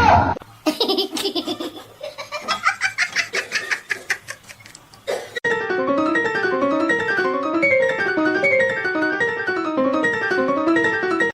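Laughter in quick rhythmic bursts for about the first five seconds, then a sudden change to background music of quickly repeating notes.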